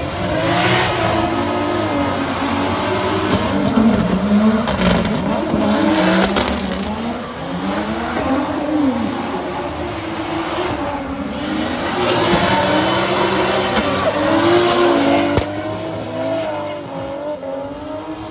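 Drift cars in tandem at high revs, engine pitch swinging up and down with the throttle over the hiss of spinning tyres; one is a BMW F22 with a turbocharged B58 straight-six. It grows loudest as the cars pass closest, about four seconds in and again near fifteen.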